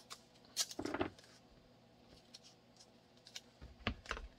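Scattered light clicks and taps of a weapon light and mold parts being handled and fitted together on a workbench: a small cluster about half a second in, then a few more near the end.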